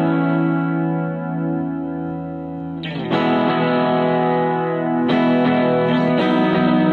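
Background music: a guitar played through effects, holding sustained chords that change about three seconds in and again about five seconds in.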